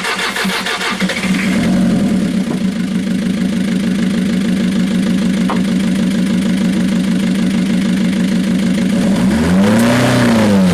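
Kia van's diesel engine run hard to simulate a runaway: it runs unevenly for the first second or so, then settles into a steady, high drone. About nine seconds in, a fire extinguisher is discharged into the engine with a loud hiss, and the engine's pitch briefly climbs and then drops away as it is starved of air.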